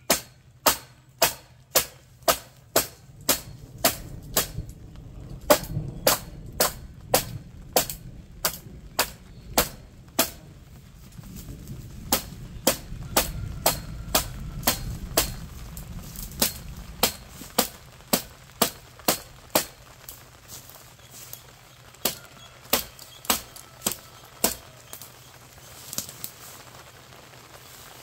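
Rapid, regular sharp strikes of a hand tool on a wooden base rail, about two a second, pausing briefly twice along the way.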